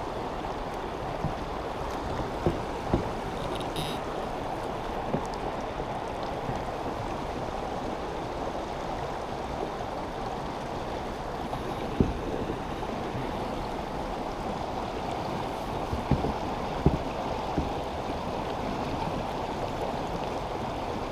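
Steady rush of creek water pouring over a small waterfall, with a few sharp knocks here and there.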